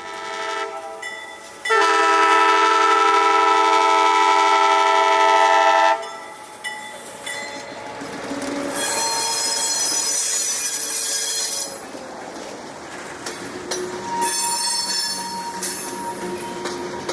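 Diesel locomotive air horn sounding one long blast of several notes at once, starting abruptly about two seconds in and cutting off about four seconds later. Later come two spells of high-pitched squeal from steel train wheels on the rail.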